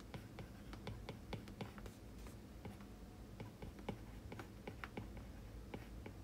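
Faint, irregular tapping clicks of a stylus on a tablet's glass screen while handwriting, several taps a second.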